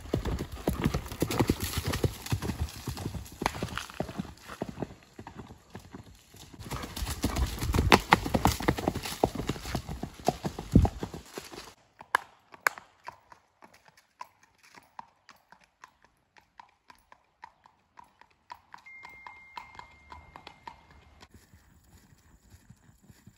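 Hoofbeats of a gaited gelding being ridden. For the first half they are loud and dense on a leafy dirt trail; then they turn into a quicker, fainter, even clip-clop on a paved road.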